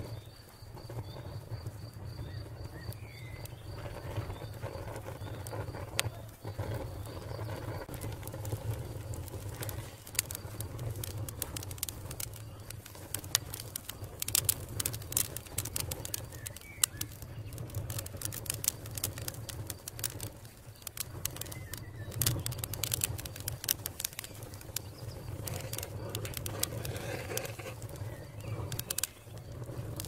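Wood fire crackling: many scattered sharp pops and snaps over a steady low rumble, with birds calling faintly in the background.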